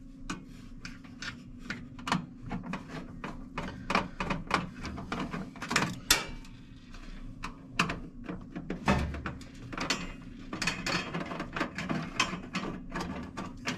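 A screwdriver backing a screw out of a range hood's metal side panel: a long run of irregular small clicks and scrapes of metal on metal.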